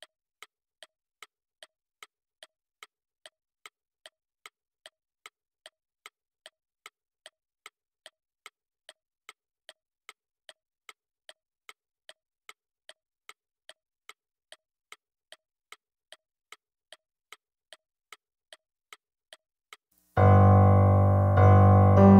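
A countdown timer's clock-tick sound effect, faint and even at about two or three ticks a second. About 20 seconds in the ticking stops and a much louder melody starts abruptly: the timer's alarm signalling that the countdown has reached zero.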